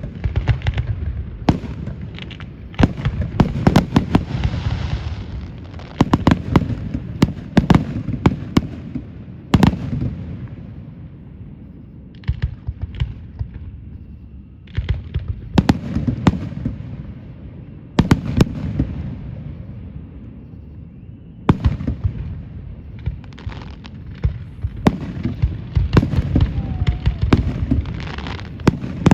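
Aerial fireworks display: a rapid series of sharp bangs and booms with crackling and rumbling echoes between them. Quieter lulls come about halfway through and again a few seconds later, and there is a dense volley near the end.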